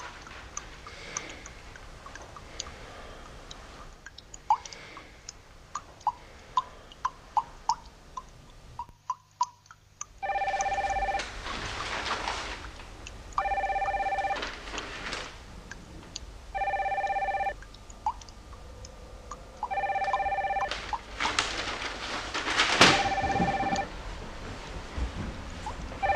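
Telephone ringing: repeated rings of about a second each, roughly every three seconds, starting about ten seconds in. Before the ringing there are only faint scattered clicks. A louder burst of rustling falls between rings near the end.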